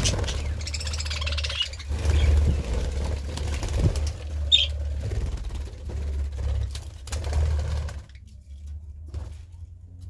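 Budgerigars chattering and chirping over a strong low rumble, with one short high chirp about halfway through; both the rumble and the chatter drop away sharply about two seconds before the end.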